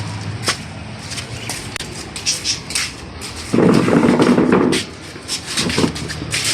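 Hand tools clicking and knocking on the metal housing of an electric water-pump motor as it is taken apart, with a louder rough noise lasting about a second in the middle.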